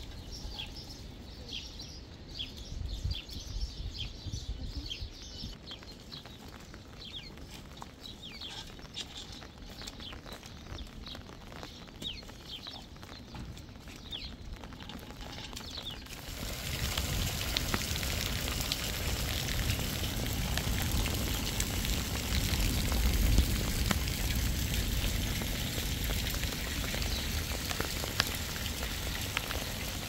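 Small birds chirping in short, repeated falling calls over a faint low rumble. About halfway through, this cuts suddenly to heavy rain with gusting wind, a loud steady hiss with a heavy low rumble underneath.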